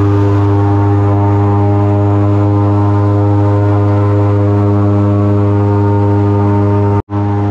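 Airboat's engine and aircraft-type propeller running at a steady speed: a loud, even drone. It breaks off for an instant near the end.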